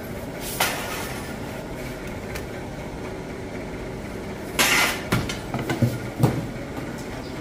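Bakery work noises over a steady low rumble: a single click about half a second in, then a short scrape and a run of sharp knocks near the end.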